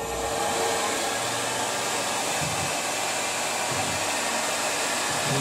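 Tormach RapidTurn CNC lathe running an automatic turning cycle: a steady rushing hiss, with a faint low hum that comes and goes twice.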